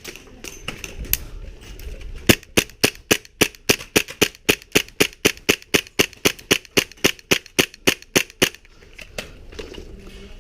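Airsoft gun firing a rapid string of single shots, about four a second, for roughly six seconds, starting about two seconds in.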